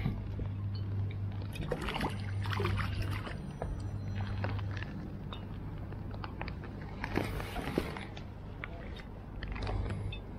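Scattered rustles, light knocks and clicks from landing and handling a small perch on a weedy bank, over a steady low hum that fades about halfway through.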